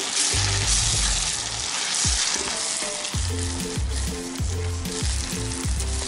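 Eggs with garlic scapes and tomato sizzling in oil in a frying pan while being stirred and broken up with a spatula. Background music with a regular low beat runs underneath.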